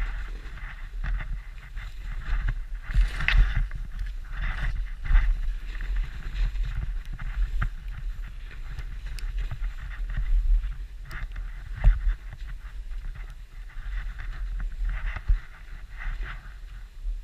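Turns through soft snow on a steep tree run: the snow hisses and scrapes in irregular swishes over a low rumble of wind on the microphone, with a sharp knock about twelve seconds in.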